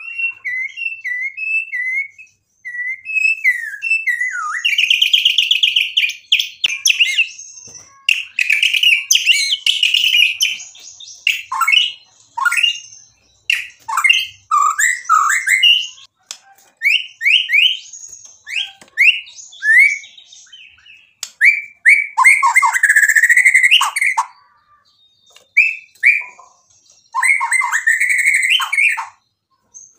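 Male white-rumped shama singing a loud, varied song: quick chirps, sharp falling whistles and buzzy rattling phrases, broken by short pauses. It is the full 'isian' song, rich in phrases mimicked from other birds.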